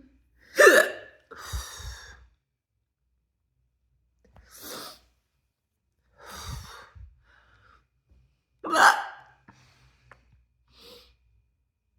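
A person hiccuping during a hiccup spell: two sharp, loud hiccups, one about a second in and one near the end, with quieter breaths in between.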